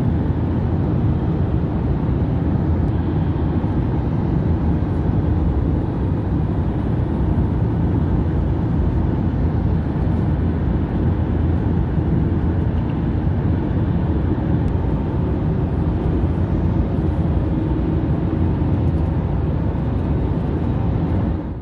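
Steady road noise of a car cruising at highway speed, tyre roar and engine drone heard from inside the cabin.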